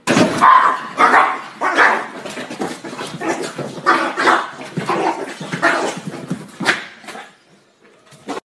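Small dog barking repeatedly at a closed door, roughly one bark a second, a sign of distress at being left behind. The barks stop after about seven seconds.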